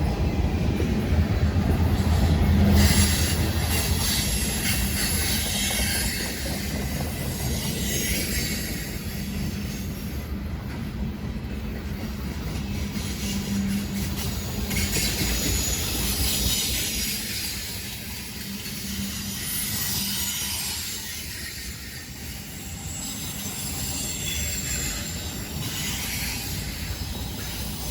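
CSX freight train rolling past: a heavy low rumble in the first few seconds, then the cars clattering over the rails with high-pitched wheel squeal that rises and falls, the whole sound easing off slightly toward the end.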